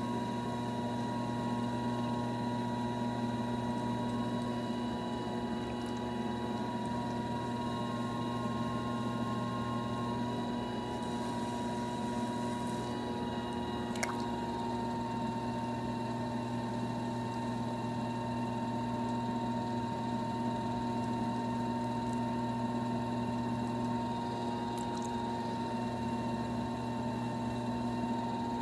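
Electric potter's wheel running steadily under a lump of wet clay being centred: a constant motor hum with a high whine that wavers slightly in pitch as the hands bear down. A single sharp click about halfway through.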